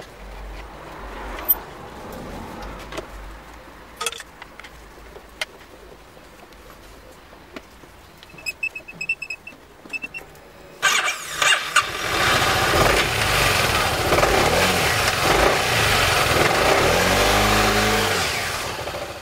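Clicks and knocks of parts being handled, then about eleven seconds in the Honda SH300i scooter's single-cylinder engine starts and runs, now breathing through a K&N air filter. Its revs dip and rise near the end.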